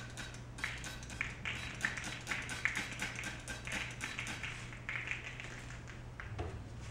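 Hand trigger spray bottle squirted over and over, a quick run of short hissing sprays at about two to three a second that stop shortly before the end.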